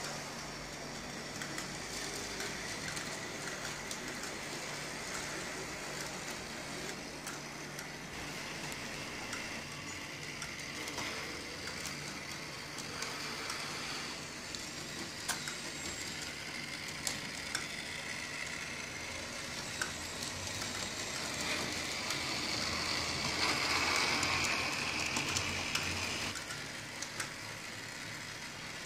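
Model streetcars running on a DCC-controlled tram layout: the steady whine and rattle of small electric motors and wheels on track, with a few sharp clicks. The whine swells louder for about five seconds, two-thirds of the way through.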